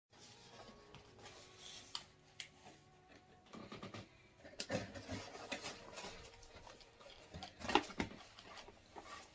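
Cardboard pizza boxes being handled, with scattered scrapes, rustles and light taps. The handling is louder about halfway through and again near the end.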